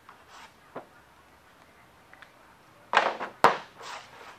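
Handling noise on a worktable: a thin sheet shuffled and slid across the tabletop, with a sudden loud scrape about three seconds in and one sharp click just after it.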